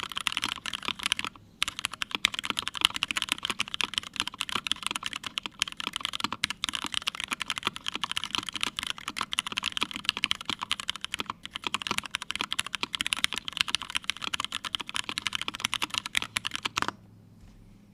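Fast continuous typing on a GSKT-00 mechanical keyboard with lubed Hyperglide Black linear switches in a full aluminium plate, under CRP Tulip keycaps. A brief pause about a second and a half in, and the typing stops shortly before the end.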